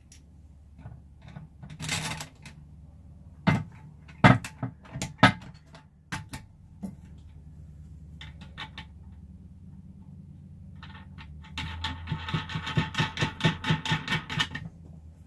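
Plastic and metal toilet-seat mounting hardware being handled and fitted: scattered sharp clicks and knocks, then a quick run of clicks, about four a second, for about three seconds near the end.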